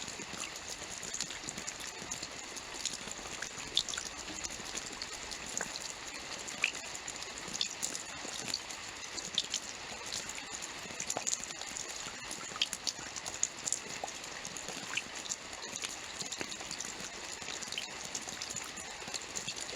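Steady rainfall: an even hiss of rain with many separate drops ticking and pattering on a surface.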